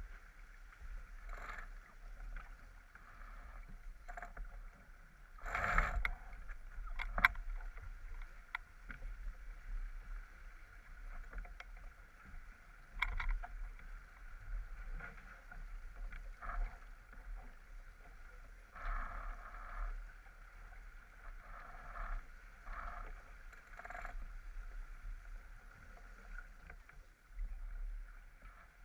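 Water rushing along the hull of a J/24 sailboat under sail, with wind rumbling on the microphone and scattered sharp knocks and clicks from the deck, the loudest about six and seven seconds in.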